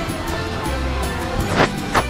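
Background music with a steady bass beat and a short sweep about one and a half seconds in.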